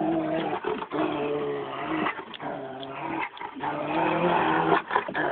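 A large dog's drawn-out, low vocal sounds, several in a row with short breaks between them.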